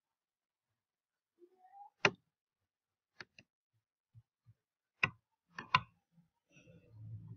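Computer mouse clicks, about six short, sharp ones: one about two seconds in, a quick pair a second later, then three more close together around five seconds in. A faint, muffled rustle follows near the end.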